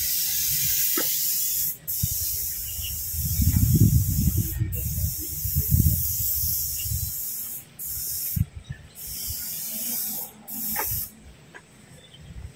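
Wind rumbling on a phone's microphone in uneven gusts, strongest in the first half, under a steady high hiss that drops out sharply several times and stops a little before the end.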